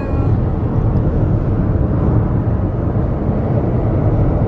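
Steady low rumble of road and engine noise heard inside the cabin of a car driving along a highway.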